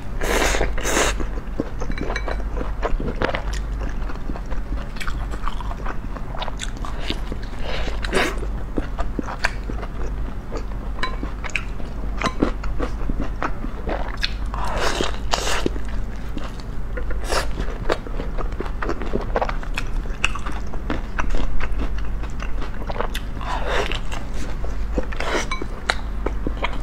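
Close-miked biting and chewing of a large steamed bun with a green-bean filling: soft, wet mouth sounds with many small sharp clicks and a few louder bites. A steady low hum runs underneath.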